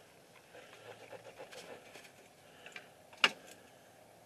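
Quiet cab with faint handling ticks and rustle, then one sharp click about three seconds in: the ignition key of a 1990 Chevy pickup being turned to on just before cranking, as the dash warning lights come up.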